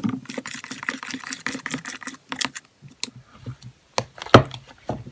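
A mixing tool stirring slime in a bowl as borax activator is worked into the glue: quick clicking and scraping against the bowl, thinning out to scattered knocks after about two and a half seconds.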